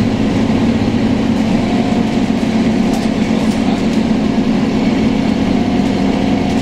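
Scania K230UB bus's Scania DC9 nine-litre five-cylinder diesel engine running steadily under way, heard from inside the passenger cabin as a constant low drone with road noise.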